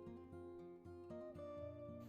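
Quiet background music: acoustic guitar notes picked and held.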